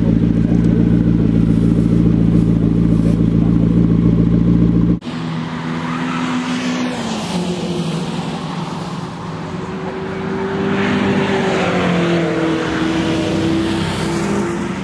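McLaren MP4-12C twin-turbo V8 idling steadily up close. About five seconds in it cuts off abruptly, and another MP4-12C is heard driving on the track, its engine note stepping up and down through gear changes and growing louder as it comes past.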